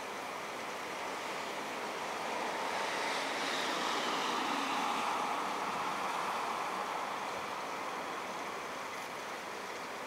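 Steady buzzing hum of Italian honey bees at a hive entrance, growing louder for a few seconds in the middle.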